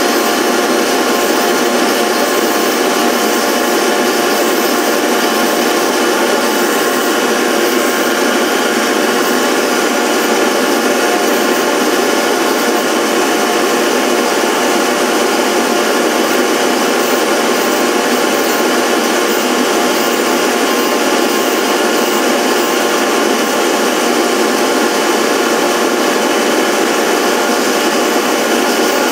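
A power-tool motor running steadily at a constant pitch, with an even rushing noise over it.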